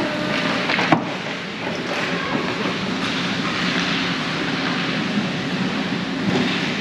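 Steady, noisy ambience of an ice hockey game in a rink, with one sharp knock about a second in.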